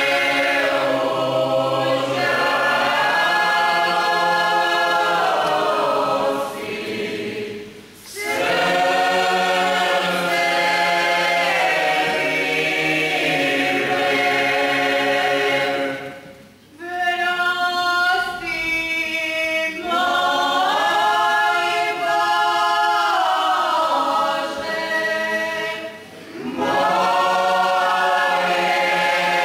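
Mixed choir of men's and women's voices singing a Catholic Lenten folk hymn unaccompanied, in long phrases broken by short pauses for breath.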